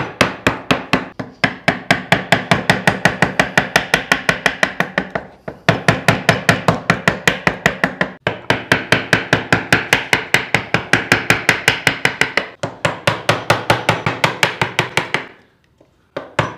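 Wood chisel being struck in rapid blows, about five a second, chopping away waste wood around a marked circle that is being left in relief. The run breaks off briefly a few times and stops for about a second near the end.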